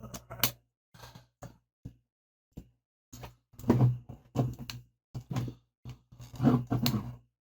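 Irregular knocks and clunks of a hand tool working against a small two-stroke engine's casing while a stubborn screw, held with thread-locker, is worked loose. The heaviest clusters of knocks come about halfway through and near the end.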